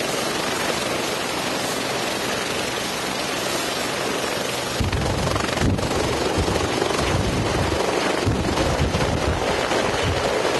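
Helicopter running with a steady, loud noise, then from about five seconds in a rapid low chopping of the rotor blades as it lifts off and climbs away, with rotor wash buffeting the microphone.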